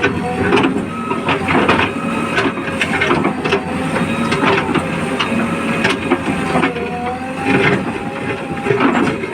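Backhoe loader at work: its diesel engine running with a steady hydraulic whine that dips and rises in pitch about two-thirds of the way in, over repeated knocks and crunches of the bucket working the soil.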